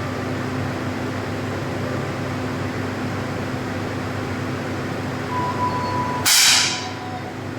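A 10 m air pistol firing once: a sudden sharp burst of air about six seconds in, just after a steady beep, over a steady background hum.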